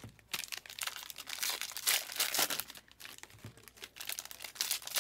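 Plastic trading-card packaging crinkling as it is handled, in irregular crackles with no pause of more than a moment.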